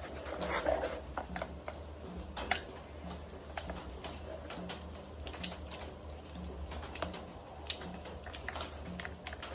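Irregular light clicks and scrapes of needle-nose pliers picking built-up gunk out of an old chainsaw that won't start, over a low steady hum.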